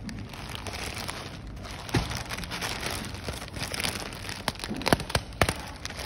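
Plastic courier mailer bag crinkling and rustling as it is handled, with a few sharp crackles, the loudest about two seconds in and near the end.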